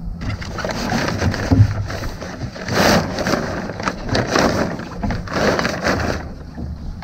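Sailcloth of a small boat's mainsail rustling and flapping as it is lowered and gathered by hand into the lazy jacks, in three noisy surges about a second apart through the middle.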